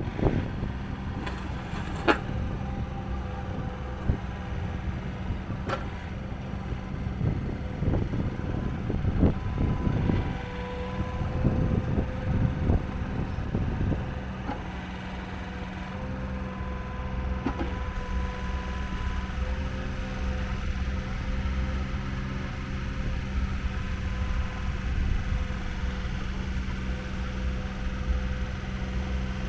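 Komatsu PC10-7 mini excavator's 18 hp diesel engine running steadily while the boom and arm are worked, with a steady whine from the hydraulics and a few sharp clanks in the first few seconds.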